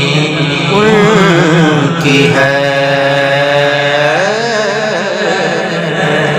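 A man singing a naat, an Urdu devotional praise poem, solo into a microphone. Wavering, ornamented runs frame a long held note in the middle.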